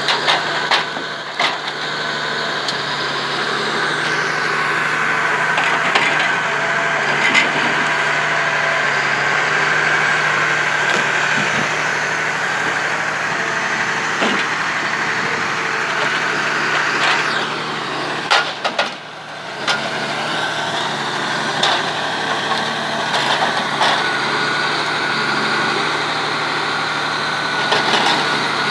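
Komatsu 895 forwarder running steadily with a high whine while its crane grapple handles logs, with scattered knocks and cracks of logs striking one another. About two-thirds of the way through, the pitch sweeps down and the sound briefly drops before picking up again.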